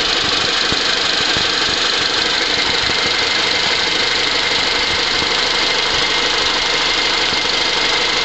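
Car engine idling steadily, an even running noise with a faint steady high whine over it.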